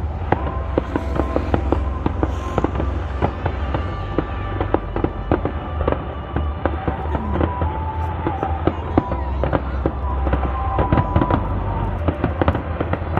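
A fireworks display going off: a dense string of bangs and crackles from bursting shells over a steady low rumble.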